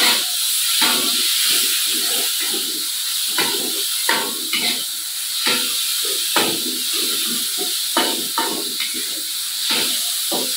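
Oil sizzling in a wok during a stir-fry, a steady hiss, with a metal spatula scraping and knocking against the pan at irregular strokes, roughly once a second.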